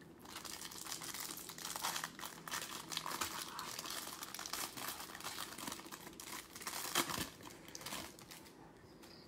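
Foil wrapper of a 2020 Donruss Optic football card pack being torn open and crinkled by hand: a dense run of crackles, with one sharper snap about seven seconds in, dying down near the end.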